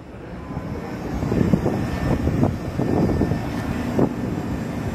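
A low engine rumble that grows louder over the first three seconds and then holds steady.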